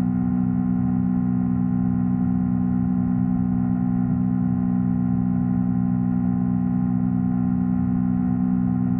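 Yamaha R3's parallel-twin engine droning at a steady, unchanging pitch under constant throttle.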